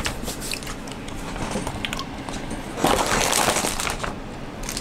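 Crunching of a puffed corn snack stick being eaten, with scattered crackles and a louder burst of crunching about three seconds in.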